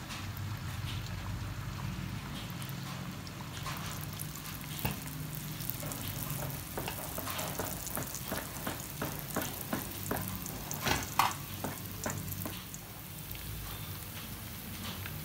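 Batter for a fried cake frying in hot oil in a wok: a steady sizzle with frequent crackling pops. The pops are busiest through the middle, and the loudest comes about eleven seconds in.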